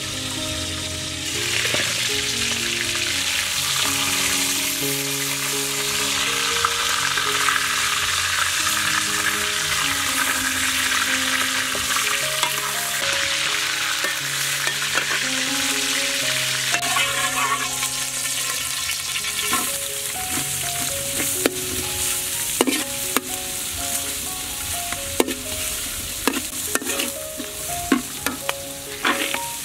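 Hot oil sizzling steadily as chicken legs fry. From about halfway in, a metal spatula stirs and scrapes in a wok, with sharp taps of metal on metal over the sizzle. Soft background music with slow held notes plays underneath.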